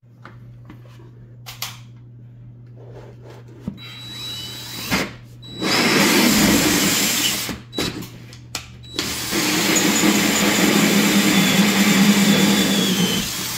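Cordless drill spinning a 6-inch hole saw in reverse through a drywall ceiling, so it grinds rather than cuts with its teeth. The drill starts about four seconds in with a high whine, then grinds loudly in two long runs with a short stop and a couple of quick blips between them, and stops just before the end.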